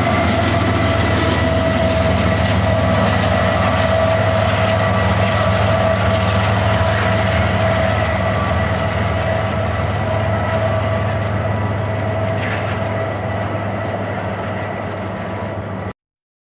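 Double-stack intermodal freight train rolling past, its rear distributed-power diesel locomotive passing at the start. A steady rumble of wheels on rail with a steady high whine slowly fades as the train moves away, then cuts off suddenly near the end.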